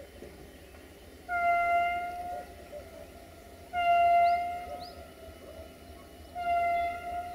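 Diesel locomotive horn sounding three blasts of about a second each, one steady pitch.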